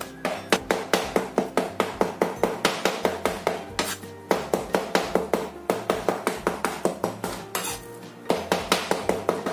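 Cleaver chopping raw chicken into mince on a wooden cutting board: rapid, even knocks of the blade on the board, about four or five a second, breaking off briefly a little before four seconds in and again just before eight seconds in.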